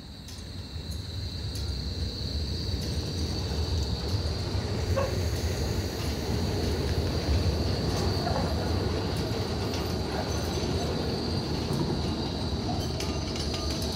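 Melbourne E-class electric tram rolling past close by on street track. Its rumble builds over the first couple of seconds and then holds steady as it passes.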